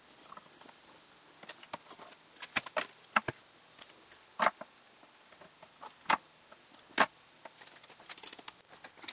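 Scattered sharp clicks and light knocks as a segmented link V-belt is handled and fitted around a large spoked pulley, its links clacking against each other and the pulley; the loudest knocks come in the second half.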